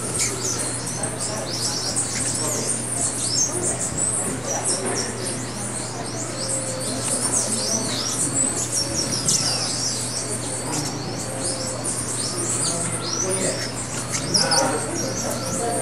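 A dense chorus of high-pitched bird chirps and twitters, many short quick notes one after another, over a steady low hum.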